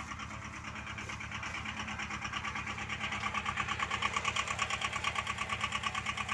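A small engine running steadily, with a fast pulsing buzz that grows louder about three seconds in.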